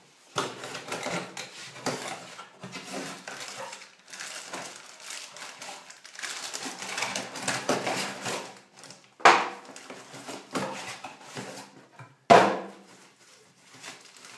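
Unpacking a boxed shower fitting: cardboard box handled and paper wrapping rustling and crinkling as it is pulled off, with two sharp knocks about three seconds apart in the second half.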